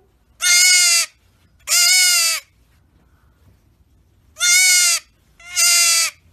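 Baby goat kid bleating loudly: four high, quavering cries of well under a second each, in two pairs with a pause of about two seconds between them.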